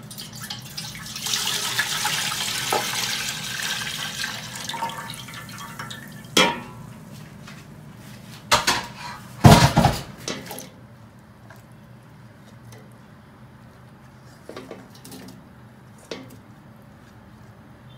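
Coconut milk poured from one metal pot into an aluminium pot, splashing for about four seconds. Then several clanks of metal pots, the loudest a heavy knock about halfway through, and a few faint taps as chopped aromatics are pushed off a plate into the pot.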